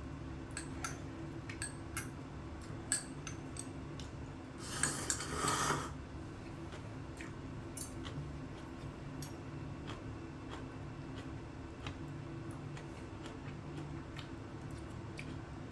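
Chopsticks and spoon clicking and tapping against a ramen bowl while eating, with one noodle slurp of about a second about five seconds in.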